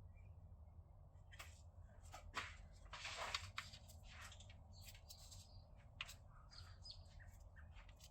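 Faint, scattered clicks and light scrapes of hand tools on engine-bay hardware, with a longer scrape about three seconds in, over a low steady hum.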